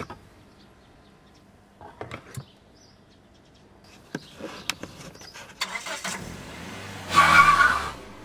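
Cartoon sound effects: a few light knocks about two seconds in and a cluster of clicks a couple of seconds later, then, loudest near the end, a van's engine starting up and pulling away.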